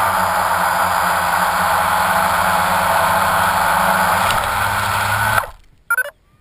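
Multirotor camera drone's motors and propellers running steadily as it descends and lands, then cutting off abruptly about five seconds in, followed by a brief short noise.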